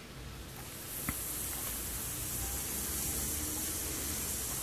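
Hot soldering iron tip sizzling in a tin of tip tinner, a soft steady hiss that sets in about a second in after a small click. The compound's mild acid is working on a heavily oxidized tip.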